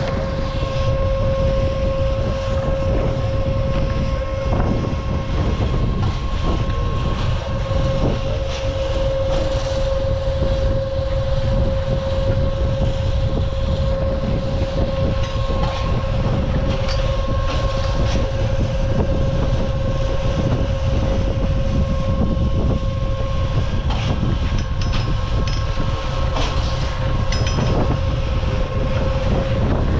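Drag-lift (téléski) bottom-station machinery running: a steady mechanical whine over a low rumble, with scattered clacks from the tow hangers and lift gear.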